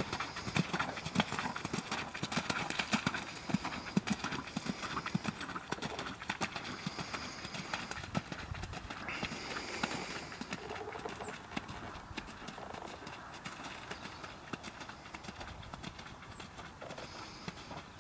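Horse's hooves trotting on a wet sand arena, a steady rhythmic beat of hoof strikes that grows quieter in the second half as the horse moves away.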